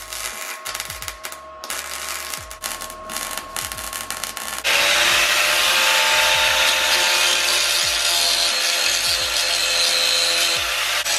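MIG welder crackling in short runs as it lays plug welds through punched holes in a new steel rocker panel. About halfway through, an angle grinder starts and grinds steadily on the welds.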